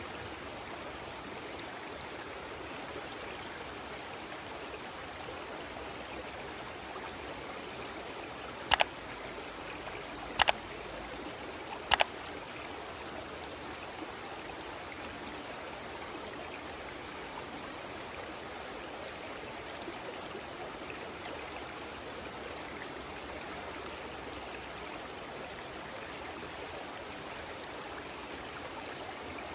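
A stream running steadily. Three sharp clicks, about a second and a half apart, come near the middle and are louder than the water.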